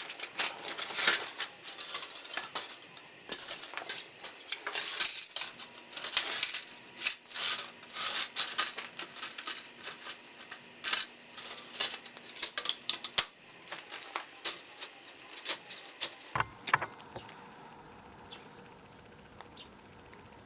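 Stainless steel parts clinking and rattling against each other in quick, irregular metallic clicks, as when handling and fitting pieces of a metal fire pit. About sixteen seconds in the clinking stops and only a faint steady hum with a few light clicks remains.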